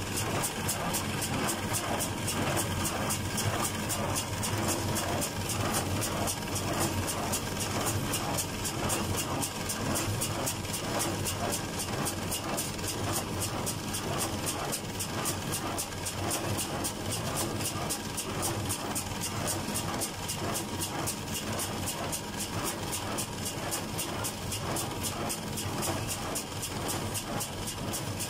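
Fendt 310 tractor engine running steadily under load as it pulls a John Deere 349 small square baler picking up hay, heard from the tractor cab. The baler keeps up a fast, even mechanical rhythm over the engine drone.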